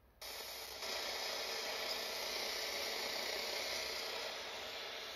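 Retekess TR102 pocket radio tuned to 549 kHz on medium-wave AM, its speaker giving a steady static hiss with no programme standing out. The hiss cuts in suddenly just after the start, out of silence.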